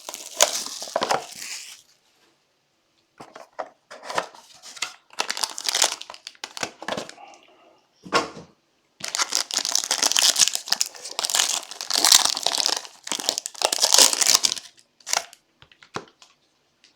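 Plastic wrapping crinkling and tearing as a sealed trading-card box and its pack are opened by hand, in irregular rustling spurts with short pauses and the loudest stretch in the second half.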